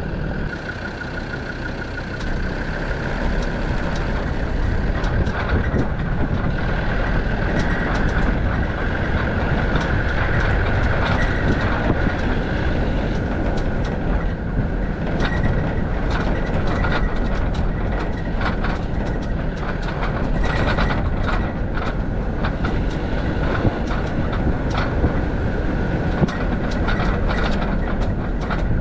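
Land Rover Defender TD5 90's five-cylinder turbodiesel running as it drives off-road, with a steady high whine over the engine and many knocks and rattles from the vehicle jolting over rough ground, more frequent in the second half.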